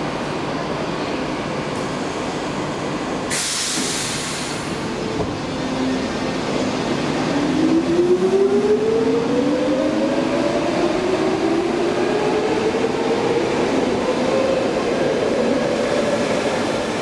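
Stockholm metro C-series train pulling out of the station. About three seconds in there is a short burst of compressed-air hiss, then the traction motors whine, rising steadily in pitch as the train accelerates away over the rails.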